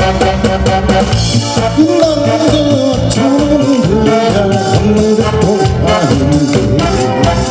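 A song with a beat-driven instrumental accompaniment, and a man's voice coming in about two seconds in, singing into a handheld microphone over it.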